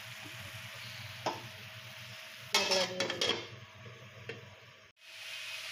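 Shredded ash gourd sizzling as it is stir-fried in an aluminium karahi, with a light clink of the spatula about a second in. About two and a half seconds in, the aluminium lid goes onto the pan with a ringing metallic clatter and a few smaller knocks, after which the sizzle is quieter.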